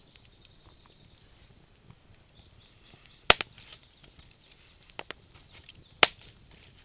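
Campfire crackling: scattered sharp pops of burning wood, the loudest about three seconds in and again near the end, over a faint high-pitched hiss.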